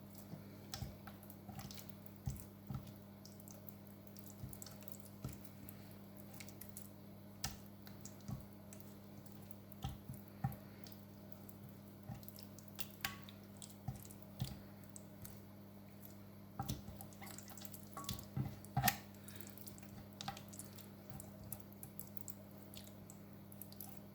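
Soft wet squelches, small drips and light taps as raw chicken wings are rubbed one by one in an oily spice marinade, scattered and irregular over a steady low hum.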